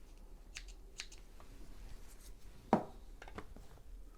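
A few light, irregular clicks and taps, with one louder knock about two and a half seconds in, from hands working a domestic sewing machine and its fabric.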